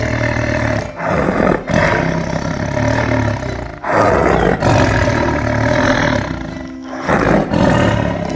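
A large wild animal roaring, several loud rough roars one after another, the biggest about four seconds in.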